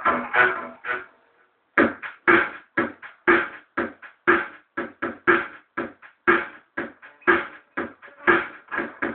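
Guitar played solo: a short cluster of plucked notes, a brief pause, then from about two seconds in a steady run of picked notes, about two to four a second, each struck sharply and dying away quickly.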